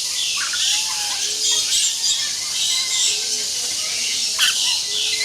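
Several birds calling over one another in shrill, chattering notes, with a lower call recurring about once a second.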